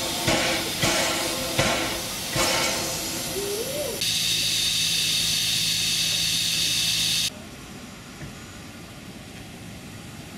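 1898 Motala Verkstad steam tank locomotive standing and hissing steam: pulses of hiss a little under a second apart for about four seconds, then a steady loud hiss with a low hum that cuts off abruptly about seven seconds in, leaving a much quieter background.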